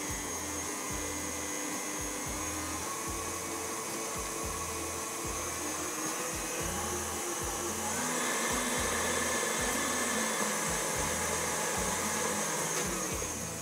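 KitchenAid Artisan stand mixer running, its beater mixing flour and cocoa powder into cake batter. The motor speeds up about eight seconds in, runs a little louder, and winds down near the end.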